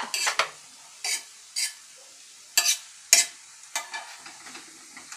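A wooden-handled potato masher pounding boiled potatoes, peas and tomatoes for pav bhaji on a thick flat pan, in a series of irregular knocks about every half second to a second. There is faint sizzling between the knocks.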